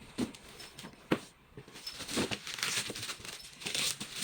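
Shoes and their packaging being handled: a few light knocks, the sharpest about a second in, then rustling and crinkling as the next pair is brought out.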